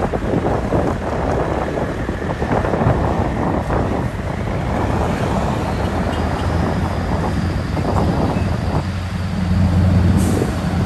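Scania 3-series truck's V8 diesel engine pulling slowly past at low revs, its low note growing louder near the end as it comes closest. Wind buffets the microphone throughout.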